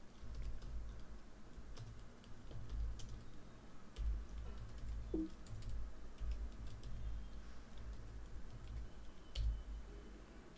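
Typing on a computer keyboard: irregular keystroke clicks with dull thuds as a terminal command is entered.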